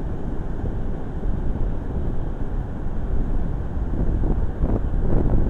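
Wind buffeting the camera's microphone: a steady low rumble with no let-up.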